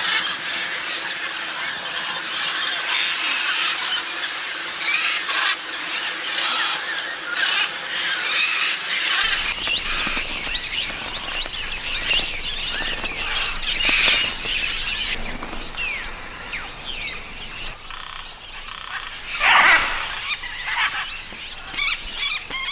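A flock of parrots and macaws calling together, a dense chorus of overlapping chattering calls, with one louder harsh squawk near the end.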